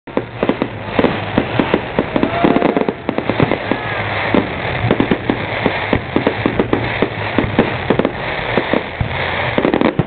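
Display fireworks going off in quick succession: an irregular run of bangs and crackles, several a second, as aerial shells and rockets burst.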